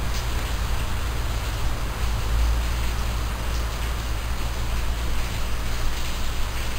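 Steady hiss with a strong low rumble underneath, the background noise of a home video camera's microphone, with a few faint ticks.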